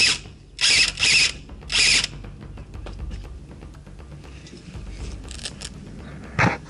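Airsoft electric machine gun (A&K PKM AEG) firing short full-auto bursts, its gearbox buzzing: three bursts in the first two seconds. Fainter bursts follow around the five-second mark, with another loud burst near the end.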